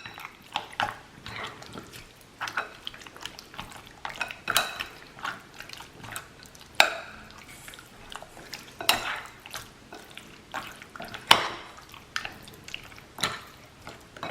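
A spoon clinking and scraping against a glass bowl as mutton is stirred into a thick yogurt-and-spice marinade, in irregular taps, with a few sharper knocks among them.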